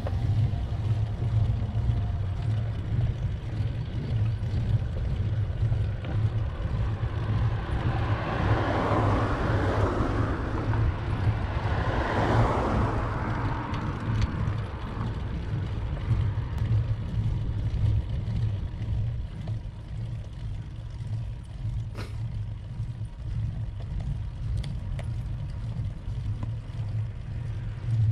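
Wind and road noise from a moving bicycle ride, a steady low rumble, with a passing vehicle that swells and fades between about eight and fourteen seconds in.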